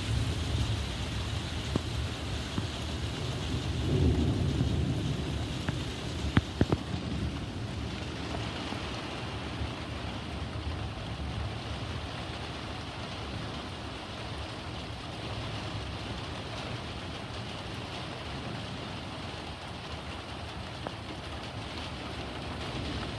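Heavy rain falling steadily during a thunderstorm, with thunder rumbling low; the rumble swells about four seconds in, and a few sharp cracks stand out about six seconds in.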